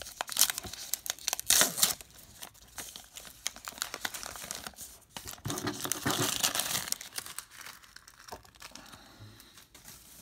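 A baseball-card pack wrapper being torn open and crinkled, the crackling loudest in the first two seconds, then a further stretch of wrapper and card rustling around the middle, fading to quieter handling.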